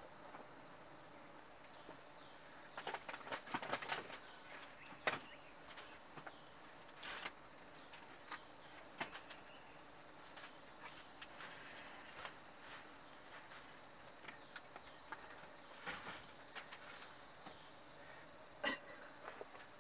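Steady high insect drone, with scattered wooden knocks and clatters as bamboo-framed trays are handled and slid onto a bamboo drying rack; a quick run of knocks comes about three seconds in, and the sharpest knock a second later.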